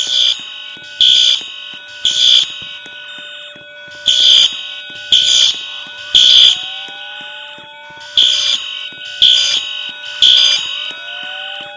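Fire alarm sounding in a three-beep pattern: three short, loud, high beeps about a second apart, a pause, then the group of three again, repeating.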